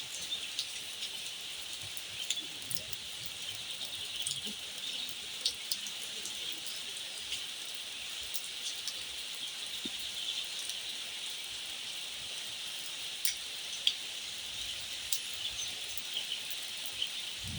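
Fine, light rain falling steadily, a soft even hiss with scattered individual drops ticking.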